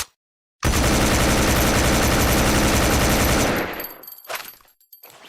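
Gunfire sound effect: a long, loud burst of rapid automatic fire lasting about three seconds, then fading out.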